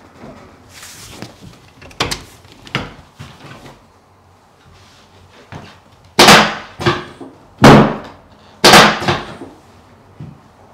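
Sharp cracks and knocks of chiropractic adjustments on a patient lying face down: two lighter ones about two seconds in, then three loud ones with a smaller one among them between about six and nine seconds in.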